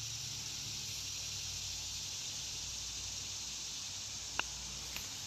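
A putter striking a golf ball once, a sharp click about four seconds in, followed by a fainter tick half a second later. Under it runs a steady high hiss of insects.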